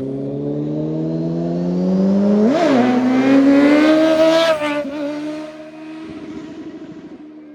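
Kawasaki Z900's inline-four engine accelerating hard, its pitch climbing steadily, with a quick shift a little over two seconds in. It pulls higher to its loudest until the throttle closes about four and a half seconds in, when the note drops and settles lower, fading away.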